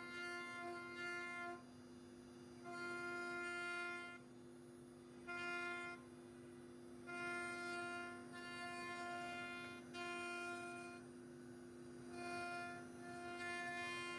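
CNC router spindle whining at a steady pitch, its sound turning harsher and louder in stretches of one to two seconds, about six times, as the bit cuts into the wooden door.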